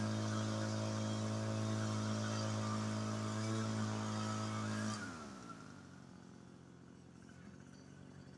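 Farmertec backpack leaf blower (RedMax 8500 clone) with its two-stroke engine running steadily at high throttle. About five seconds in the throttle is let off: the engine note falls away in pitch and the sound becomes much quieter.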